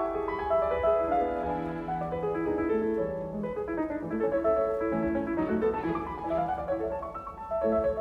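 Background instrumental music: a melody of many short notes, led by a piano.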